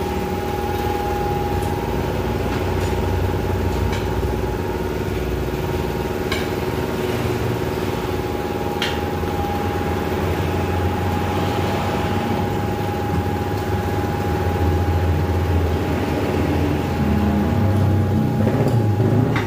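Steady mechanical hum of tyre-shop machinery, with a few light clicks while a worn car tyre is worked on its rim on a tyre-changing machine; the low hum grows a little louder near the end.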